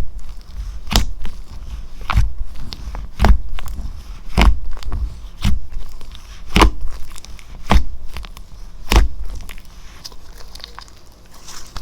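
Slime being pressed and poked, giving a sharp pop with a low thump about once a second, nine times. The pops stop about nine seconds in, leaving a soft crackle.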